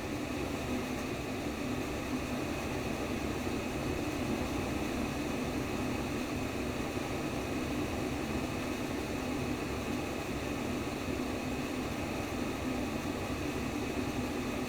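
Simulated womb sound: a steady, even rushing white noise, heaviest in a low hum, with no changes and no heartbeat pulse standing out.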